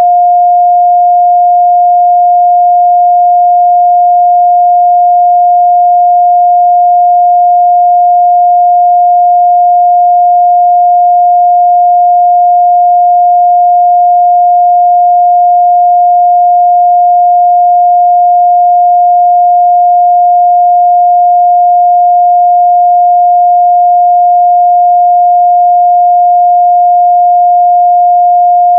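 Continuous 708 Hz sine-wave test tone, a single pure steady pitch held at constant loudness.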